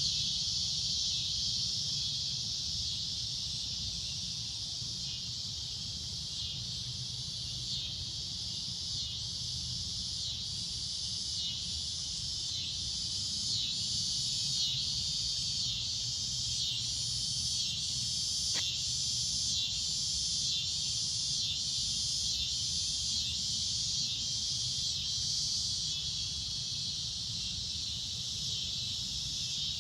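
Cicadas droning: a loud, shrill buzz that holds steady, and through the middle stretch swells and fades about once a second. A low rumble runs underneath.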